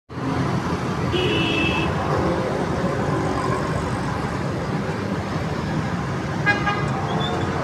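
Steady road traffic noise, with a vehicle horn tooting briefly about a second in and another short toot near the end.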